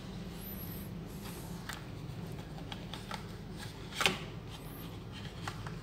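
A Nokia 6700 Classic being handled and set down into its cardboard box: small clicks and rustles, with one sharper knock about four seconds in as it is placed. A steady low hum runs underneath.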